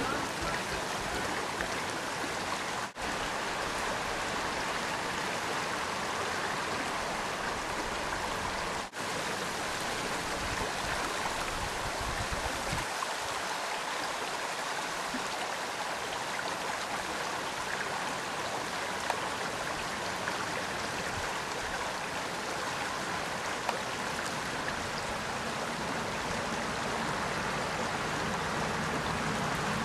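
Shallow stream running over a gravel spawning bed: a steady rush of flowing water that drops out briefly twice.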